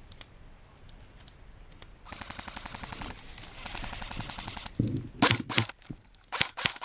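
Airsoft guns firing on full auto: a rapid stream of shots from about two seconds in, then a few loud sharp cracks close by near the end.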